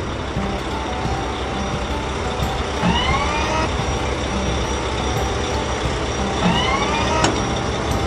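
Cartoon sound effect of a combine harvester's engine running with a steady low rumble, overlaid by two rising, whistle-like pitch sweeps about three and six and a half seconds in, and a sharp click just after the second.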